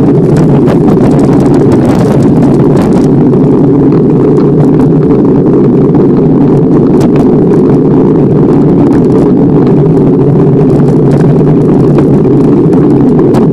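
Loud, steady wind rumble on the microphone of a moving bicycle, with a few faint clicks from the ride over the path.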